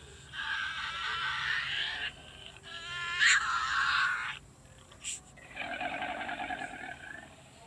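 A farm animal's calls, three in a row, each lasting about a second and a half, the last one pulsing.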